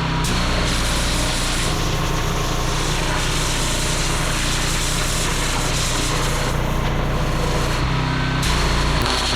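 Petrol-engined pressure washer running steadily, with the hiss of the water spray over the engine hum; the engine note shifts a few times as the load changes.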